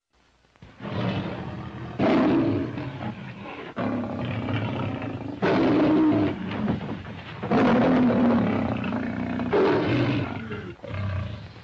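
Lion roaring several times in a row, each roar a second or two long: the roar from the Metro-Goldwyn-Mayer studio logo of the 1934–1956 era.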